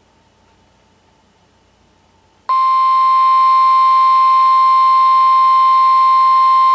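NOAA Weather Radio 1050 Hz warning alert tone, played through an Oregon Scientific WR-3000 weather radio's speaker. It is a single steady, loud tone that comes on suddenly about two and a half seconds in, after faint hiss. The tone signals that a warning message is about to be broadcast.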